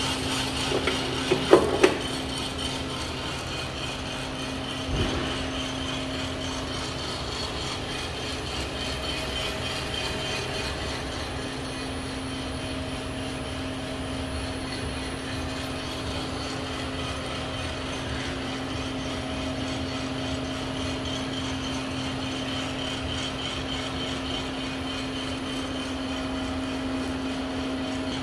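Coffed SR5 5 kg coffee roaster running with a steady mechanical hum and a constant low tone. A few sharp clicks come just under two seconds in, and a single knock at about five seconds.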